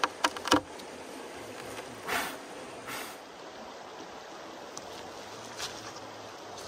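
Shallow river flowing steadily, with water splashing as a freshly cleaned grouse is rinsed in it, a short splash a little after two seconds and a smaller one about a second later. A few sharp clicks and knocks in the first second are the loudest sounds.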